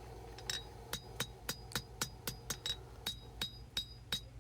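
Hand hammer striking hot 1095 high carbon steel on an anvil while drawing out a knife blade, about three to four blows a second, each with a short bright ring. The blows begin about half a second in and pause briefly near three seconds, over a steady low hum.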